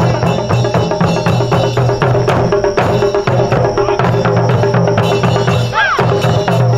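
Japanese taiko ensemble drumming: fast, steady strokes on shoulder-slung okedo drums and barrel-shaped nagado drums. A short shout rises and falls in pitch about six seconds in.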